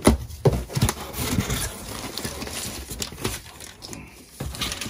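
Sealed cardboard box being torn open by hand: a sharp rip at the start and another just after, then ongoing scraping and rustling of cardboard flaps and paper.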